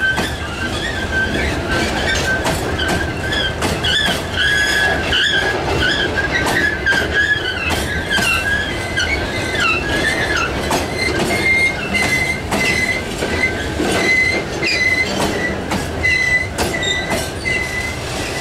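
Freight train wagons rolling past at close range: a steady rumble of steel wheels on rail with repeated clicks over the rail joints, and a high, wavering wheel squeal. About halfway through, the squeal settles into a steadier, slightly higher tone.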